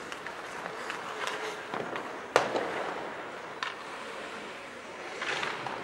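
Ice hockey play in a rink: scattered sharp clacks of sticks and puck over a steady background hum of the arena. The loudest is a single bang about two and a half seconds in, with echo trailing after it, and another knock comes about a second later.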